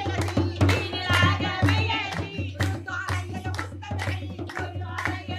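Women singing a lively folk song to a hand-held frame drum beaten in a quick, regular rhythm, with hand clapping.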